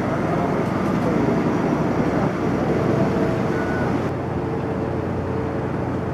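Steady city street traffic noise: cars passing and running at an intersection, a continuous rumble with faint engine tones; the upper hiss drops away about four seconds in.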